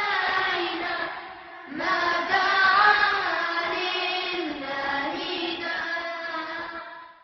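A single voice singing a slow chant with long, winding held notes, a short break about a second and a half in, fading out near the end.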